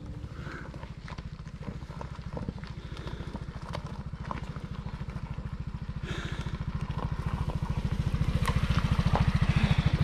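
Small motor scooter engine puttering as the scooter rides up a rough dirt track, getting steadily louder as it comes closer, with a few light knocks along the way.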